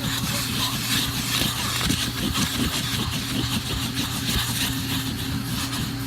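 Vacuum cleaner running steadily with a constant hum and hiss of suction, its nozzle scraping and pulling sand-like debris from car carpet.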